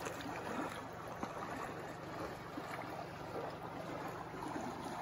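Small shallow stream running over a rocky bed: a steady rush and trickle of water.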